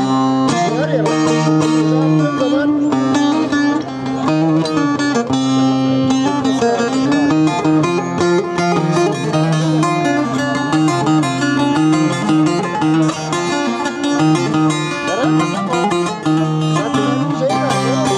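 Bağlama (saz) played solo as a Turkish folk tune: a quick plucked melody over a steady low drone.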